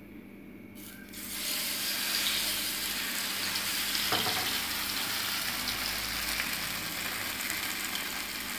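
Marinated sole fillet sizzling in hot oil in a non-stick frying pan, the sizzle starting about a second in as the fish goes into the oil and then holding steady.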